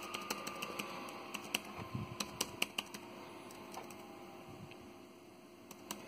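HP Pavilion dv7 laptop keys pressed in a quick, irregular run of clicks over about three seconds, thinning out to a stray click or two near the end.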